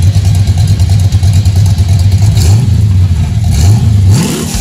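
GM Performance Parts ZZ430 small-block V8 in a 1964 Chevy II Nova idling loudly, then revved once near the end with its pitch rising briefly.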